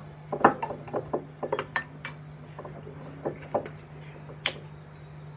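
Clinks and knocks of a glass vinegar bottle and a spoon being handled on a kitchen counter, mostly in the first two seconds, with a sharp last clink about four and a half seconds in. A steady low hum runs underneath.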